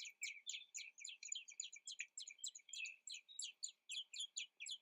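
Birds chirping: a steady, rapid run of short, high chirps, about five a second.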